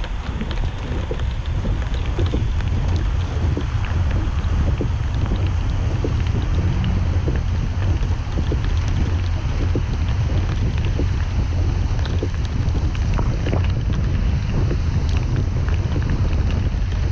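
A car driving on a wet road: a steady low rumble of tyre and wind noise, with scattered light ticks throughout.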